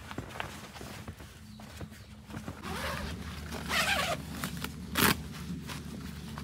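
Rustling and handling noises, loudest a little before the middle, with a sharp click about five seconds in, over a steady low hum.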